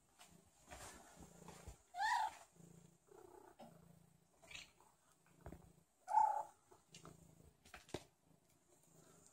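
Tabby cat meowing to beg: two loud meows about two and six seconds in, with a few softer short mews between, over a low pulsing purr.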